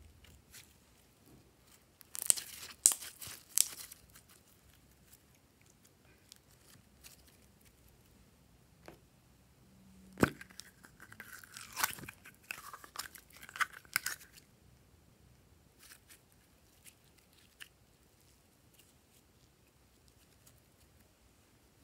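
Glossy slime being handled, with short crackly, squelching bursts. About ten seconds in comes a sharp plastic click as a pill-shaped plastic slime container is opened, then a few seconds of crackly, squeaky handling of slime and plastic.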